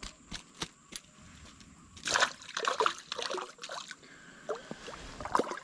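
Water splashing and sloshing in short bursts, in two clusters from about two seconds in, with a few light clicks before them.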